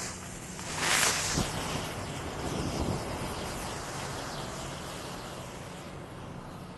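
Black Cat 'Den of Snakes' firework fountain: the fuse sputters, then about a second in the fountain lights with a loud rush and goes on hissing steadily as it throws out flame and sparks. A couple of sharp pops come early, and the hiss slowly dies down.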